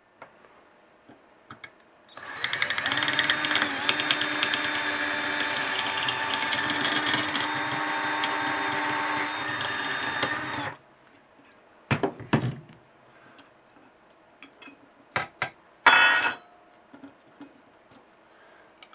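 Electric drill with a 1/8 inch bit running steadily for about eight seconds, drilling out the rivet that holds a projector lamp cover's heat shield, then stopping suddenly. A few short knocks follow.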